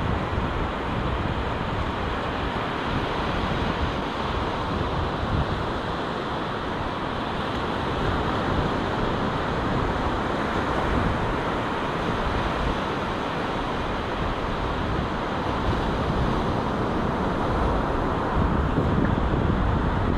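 Small waves breaking and washing up a sandy beach, with wind buffeting the microphone in a low rumble that rises and falls.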